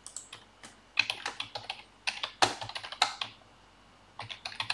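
Typing on a computer keyboard: quick runs of keystrokes with short pauses between them, and a longer pause about three and a half seconds in.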